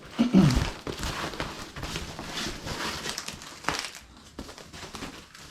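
Plastic packaging crinkling and rustling as a motorcycle windscreen is unwrapped from its bag, with a brief louder low thud at the start.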